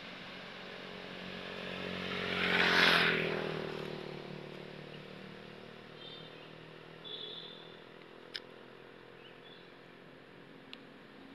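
A motor vehicle passing by, growing louder to a peak about three seconds in, its engine note then falling in pitch as it moves away. Two short sharp clicks come later.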